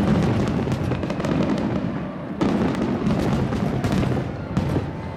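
Fireworks display: aerial shells bursting with deep booms and dense crackling, a fresh loud burst about halfway through, and the crackle dying away near the end.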